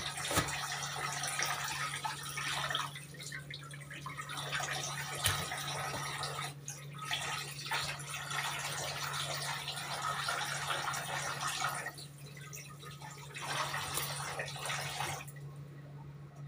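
Tap water running into a stainless steel sink and splashing as fish pieces are rinsed by hand under it. The flow thins a few times and stops about a second before the end, leaving a low steady hum.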